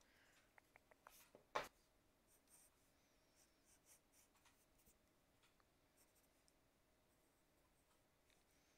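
Faint scratching of a pencil sketching on paper, with a few light clicks around a second in and one short, louder rustle of hand or paper about a second and a half in.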